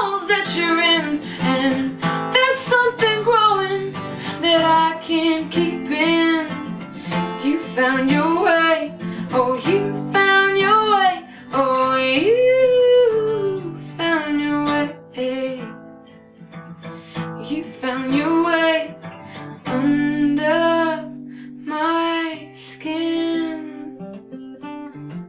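Acoustic guitar strummed under a singing voice that holds long, sliding notes without clear words. The voice stops near the end, leaving the guitar chords ringing.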